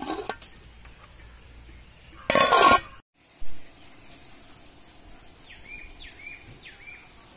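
Aluminium cooking pot and its perforated lid clinking and clattering as the pot of rice water is set on a wood fire, with one loud ringing clatter a little over two seconds in and shorter knocks at the start and just after three seconds.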